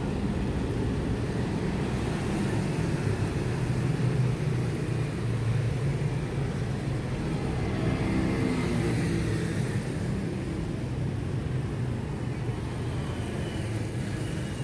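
Road traffic: a steady rumble of vehicle engines, with one engine rising and falling as it passes close about halfway through.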